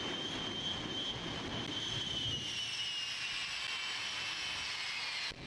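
The jet engines of the Shockwave jet truck running with their afterburners lit: a steady rushing roar under a high turbine whine, which eases slowly lower in pitch from about two seconds in.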